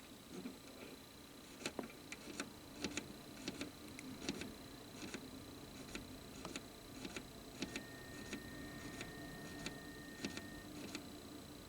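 Faint irregular clicks and taps, about one or two a second, over a faint steady high electronic whine. A second faint steady tone sounds for about three seconds past the middle.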